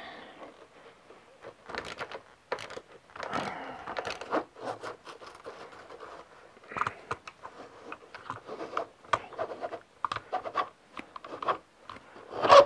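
Irregular scraping, rubbing and clicking as a GSXR 600 inverted motorcycle fork tube is worked by hand down through its loosened triple clamps, with a sharper knock near the end.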